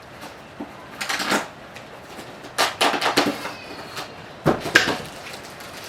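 Plastic packaging rustling and crinkling in three short bursts as protective covers are pulled and worked off a new scooter, with a faint squeak in the middle.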